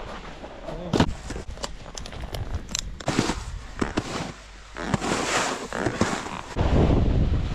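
Irregular sharp clicks and crunches of snowboard gear and boots on hard-packed snow, then from about five seconds in a snowboard sliding over the snow with wind on the microphone, becoming a loud rumble near the end.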